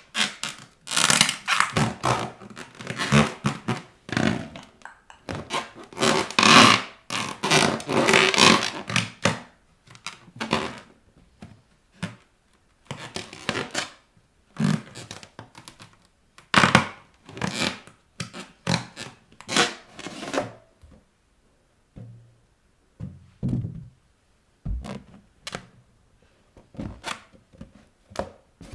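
Rubber balloons being pressed, rubbed and stepped on by bare feet: repeated thuds with scraping and rubbing, busy through the first ten seconds or so, then fewer and further apart.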